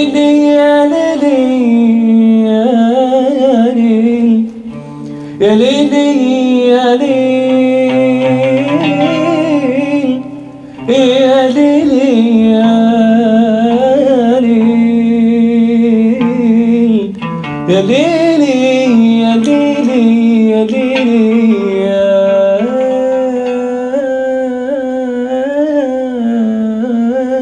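A man singing Arabic into a microphone in long, richly ornamented phrases with short breaks between them, over a plucked-string accompaniment. He himself finds his voice hoarse.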